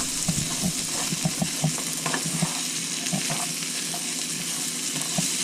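Sliced prickly pear cactus pads (nopales) sizzling as they fry in butter in a pan, with a steady hiss and scattered small clicks and knocks as they are stirred.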